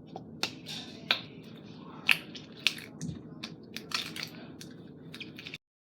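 Slime being squished and worked by hand, giving irregular sticky crackles and small popping clicks; the sound cuts off suddenly near the end.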